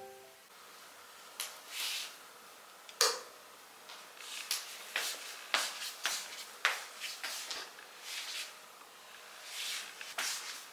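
Footsteps and scattered light knocks and clicks as a person moves about a kitchen. Near the end there is a sharper knock as a bar stool is handled.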